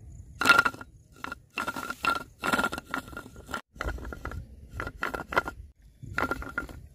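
A hooked fish thrashing on the line of a bamboo pole trap, heard as irregular short bursts of splashing and scraping noise with brief pauses between them.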